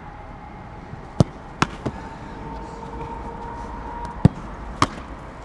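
Football being kicked and caught in goalkeeper training: sharp thuds of the ball struck and slapping into gloves, five in all, three close together about a second in and two more about four seconds in.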